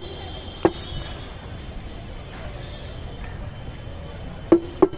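Sharp metallic knocks on a stainless steel tumbler of chaat, each with a brief ring: one about half a second in and two in quick succession near the end, over steady street background noise.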